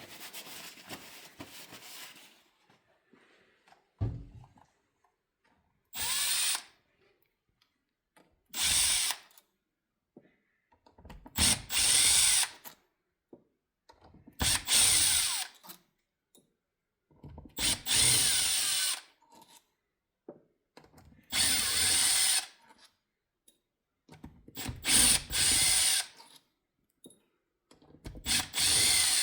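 Cordless power driver running in repeated short bursts of about a second each, eight in all, backing bolts out of a new transmission valve body as it is taken apart. A single knock comes just before the first burst.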